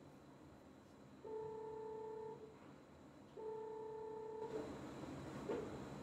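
Phone call tone: two beeps of one steady mid-pitched tone, each about a second long with about a second's gap between them. Near the end a hiss rises and there is a faint click of handling.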